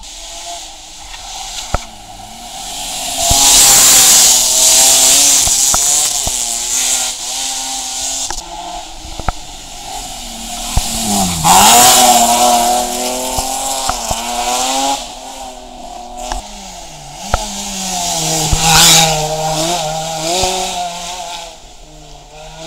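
Rally car engines driven hard through bends in turn, the revs rising, dropping sharply under braking and downshifts, then climbing again, with loud spells of tyre and exhaust noise.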